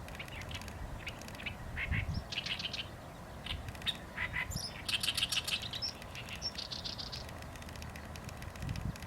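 Small birds chirping in short clusters of high twittering notes with brief gaps between them, busiest about five seconds in.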